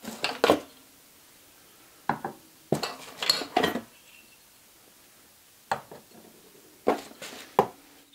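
DCG4/1000 mercury-vapour rectifier tubes in porcelain sockets being set down one by one on a hard table. There are clusters of clinks and knocks of porcelain and glass, at the start, around two to four seconds in, and again near the end.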